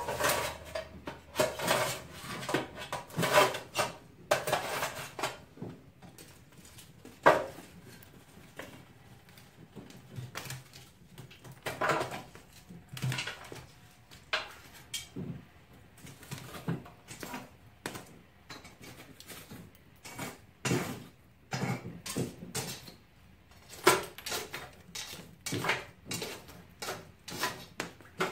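Metal fireplace tool clinking and scraping against a metal tray and grate while raking embers and knocking firewood about, in irregular clanks and knocks.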